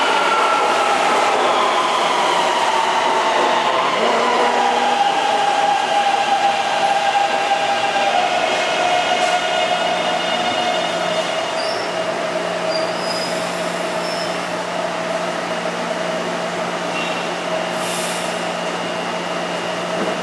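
Taipei MRT C321 electric train pulling into the station and braking to a stop: its motor whine falls steadily in pitch over the first half as it slows, then gives way to a steady hum while the train stands at the platform.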